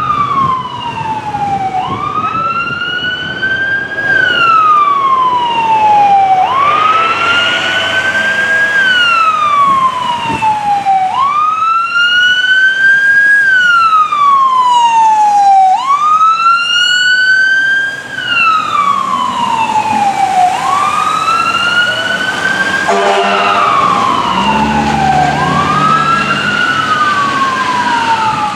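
Fire engine siren of a 2009 Sutphen Shield S2 pumper sounding the wail: a loud tone that rises quickly and falls slowly, about every four and a half seconds. Near the end it is joined by air horn blasts.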